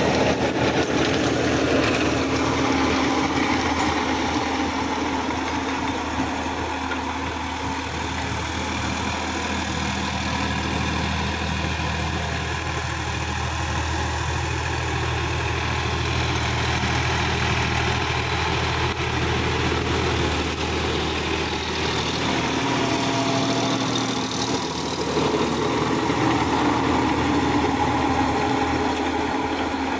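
Sonalika tractor's diesel engine running steadily under load, driving a rear rotary tiller through the soil.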